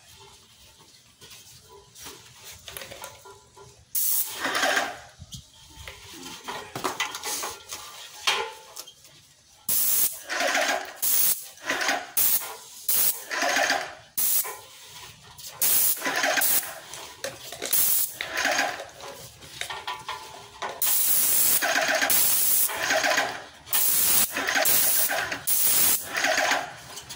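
Graco Magnum ProX19 airless paint sprayer's gun hissing as it sprays paint, in short bursts about a second long as the trigger is pulled again and again. The bursts begin about four seconds in, with one longer spray of a couple of seconds near the end.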